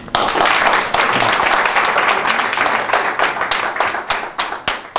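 Audience applauding, thinning out to a few separate claps near the end.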